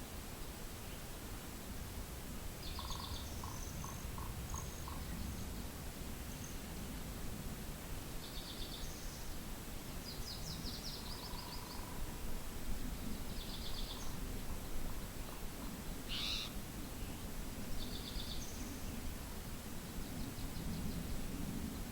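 Steady wind over the microphone, with small birds giving short, buzzy high-pitched calls every few seconds. About three seconds in comes a quick run of five short, lower, evenly spaced notes, and about two-thirds through there is one sharper high call.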